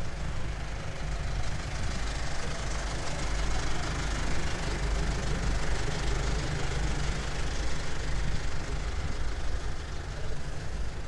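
A large engine idling with a steady low rumble.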